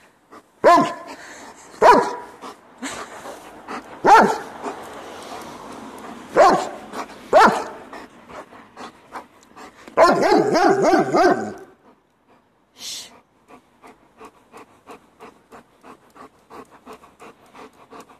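German Shepherd dog barking on command: about five single barks spaced a second or two apart, then a longer wavering call lasting nearly two seconds, followed by rapid panting.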